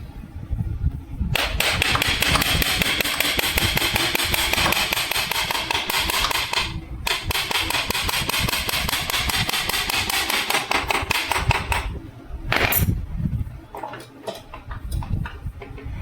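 Rapid, even metallic hammering rattle of a power impact wrench, in two runs of about five seconds each with a short break between, followed by a few separate metal clanks.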